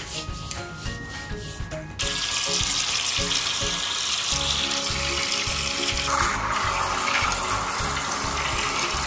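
Water jet flushing a floor drain: a loud, steady rush of water that starts suddenly about two seconds in and changes tone about six seconds in, as the nozzle goes down into the drain. Background music plays throughout.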